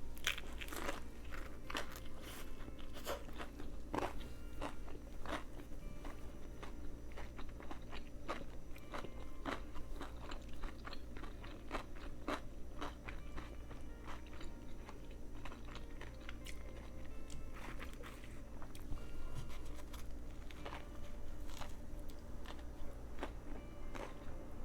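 Close-miked chewing of a sandwich: crunchy bites and mouth crackles, many short sharp crunches one after another, over a low steady hum.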